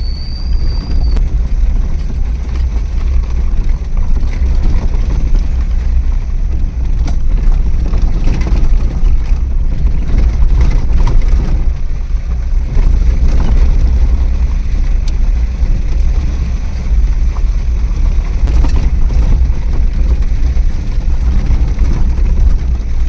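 Car driving along a forest road: a steady low rumble of engine and road noise, with a few short knocks along the way.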